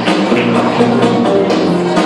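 Music with a steady beat: held instrument notes over regular drum hits.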